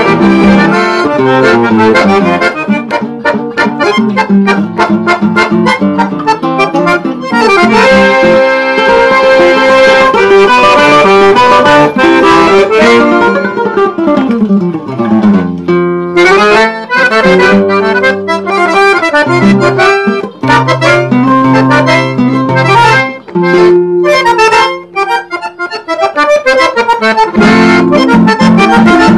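Accordion playing a tune, with a quick run down the scale and back up about halfway through, over a plucked guitar accompaniment.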